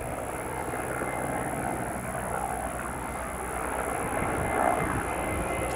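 Mi-8 helicopter's twin turboshaft engines and main rotor running in flight as it flies over: a steady low rotor drone with engine noise, slowly growing louder.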